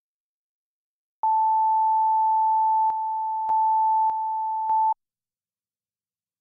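Broadcast line-up tone over a programme countdown clock: one steady, loud, high beep lasting nearly four seconds, dipping in level twice briefly before it cuts off.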